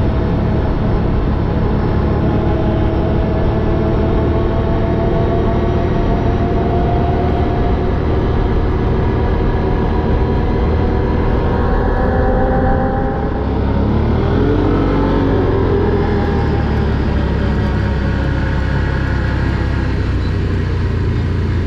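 Quad ATV engine running under way, with a steady low rumble beneath it. About thirteen seconds in the engine note drops, then climbs again as it speeds back up.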